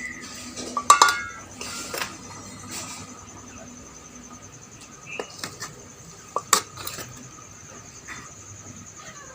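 Metal clinks and knocks of metal stove parts being handled and set down. The loudest two strikes ring briefly, one about a second in and one about two-thirds of the way through, with lighter clinks between.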